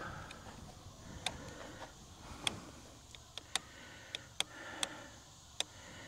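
Sharp, irregular clicks, about ten in a few seconds, as the rear brake of an oraimo Scrambler 100 e-bike is adjusted by hand with its thumb-screw adjusters.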